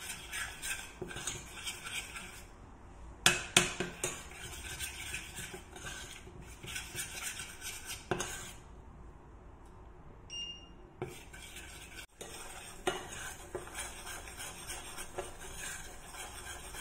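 A metal utensil scrapes and clinks around a stainless steel saucepan, stirring a butter-and-flour roux as it toasts toward golden. There are two louder knocks about three seconds in and a short beep about ten seconds in.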